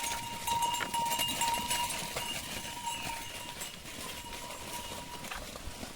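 A herd of goats on the move: scattered small clicks and rustles from the animals, with a steady high ringing tone over them.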